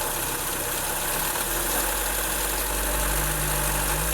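Chevrolet Spin's 1.8 four-cylinder engine running with its accessory belt removed and revved lightly, rising in pitch about a second and a half in and again near the end. The engine makes a strong abnormal noise that persists without the accessory belt, which the mechanic takes to come from inside the engine.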